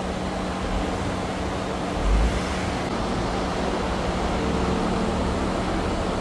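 Ford F-150 pickup engine running at low speed with a steady hum as the truck creeps forward, over road traffic noise; a low thump about two seconds in.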